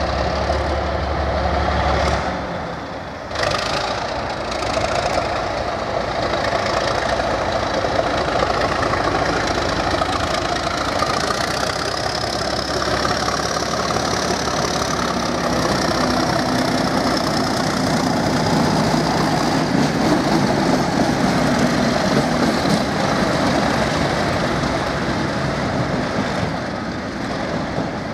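Two coupled Class 37 diesel locomotives with English Electric V12 engines running past at close range, a steady loud engine sound throughout. Through the middle a high whine rises and then falls in pitch as they go by.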